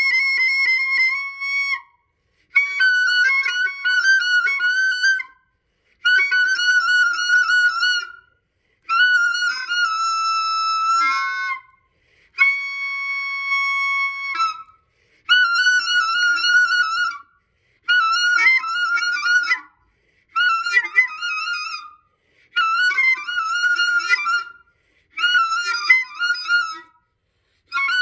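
Experimental 'noise classical' clarinet music: pitched woodwind phrases of two to three seconds each, broken by short gaps of complete silence, thin and high with no low end. One passage about halfway through holds a steady chord-like tone.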